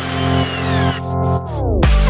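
Electronic dance music: held synth chords sweep downward in pitch with brief drop-outs of the high end, then a heavy kick-drum beat comes in near the end.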